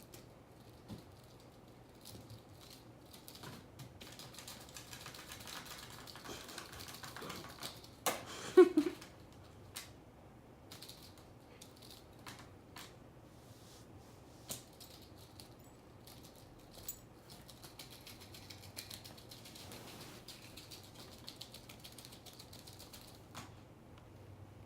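Irregular light clicking and tapping, busier in stretches, with one brief louder sound that has a pitch to it about eight and a half seconds in.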